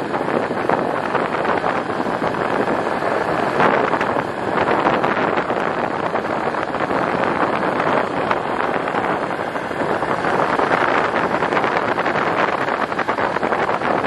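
A vehicle driving slowly along a gravel road: a steady rush of tyre and road noise mixed with wind on the microphone, swelling a little now and then, with no engine tone standing out.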